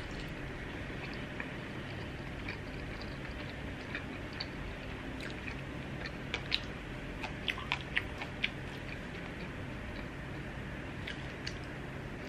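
A person chewing a siu mai dumpling with the mouth, with a run of sharp smacks about six to eight seconds in, over a steady low background hum.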